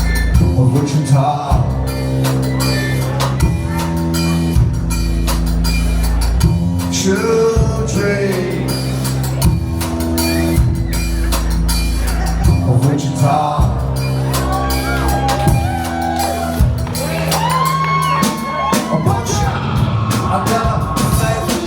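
Live band music played loud without a lead vocal: long held bass notes changing about every two seconds under drums, with sliding, wavering pitched tones coming in during the second half.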